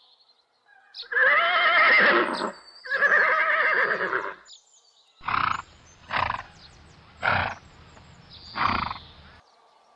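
Horse whinnying twice in long, wavering calls, then giving four short, rough calls spaced about a second apart.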